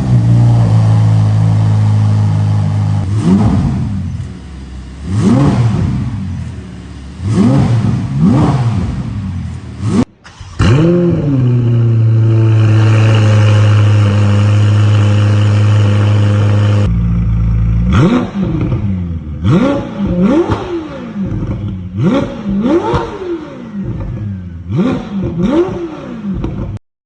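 Ferrari F8's twin-turbo V8 revved in repeated free-rev blips between idles, first through the stock exhaust and then through a Boden Autohaus aftermarket exhaust. There is a hard cut about ten seconds in, then a long steady high idle, and in the last third a quick run of short, sharp revs.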